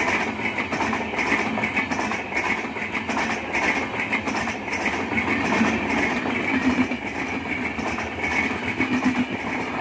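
Passenger train coaches rolling past close by: a steady rumble of steel wheels on the rails, with a continual run of clicks and clatter as the wheels cross the rail joints.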